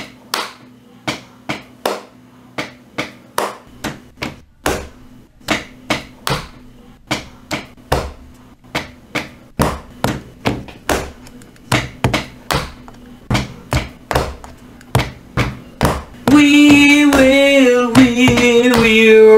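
A steady rhythmic beat of taps and knocks on hard objects, about two to three a second. About sixteen seconds in, a loud long sung note joins, sliding slowly down in pitch.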